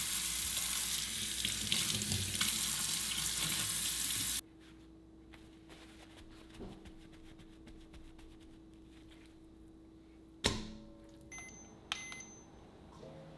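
Kitchen faucet running into a stainless steel sink while a steel bowl is rinsed, shut off abruptly about four seconds in. Then faint rustling of paper towel patting raw meat dry, a sharp knock on the counter, and a couple of short electronic beeps as a digital kitchen scale is switched on.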